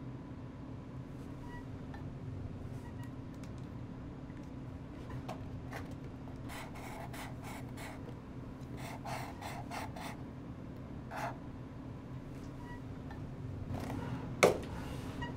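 Sharpie permanent marker drawn across a small cardboard box in a run of short rasping strokes in the middle, over a steady low hum of room tone. A single sharp knock near the end.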